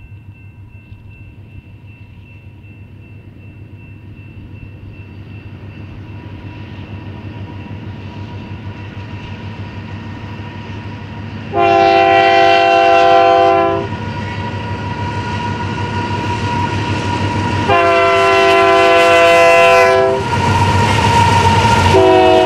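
Diesel-electric freight locomotives led by a GE C44AC approaching, their rumble growing steadily louder. The locomotive's multi-chime air horn sounds two long blasts, about halfway through and again about three quarters of the way through, then a short blast near the end.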